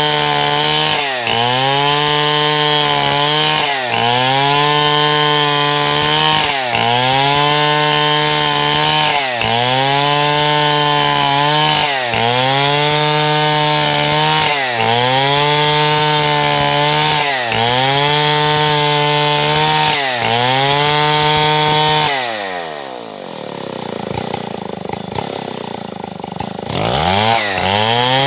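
Stihl MS070 two-stroke chainsaw running at high revs in wood. The engine pitch dips under load and recovers about every two seconds. Near the end it drops to idle for a few seconds, then revs back up.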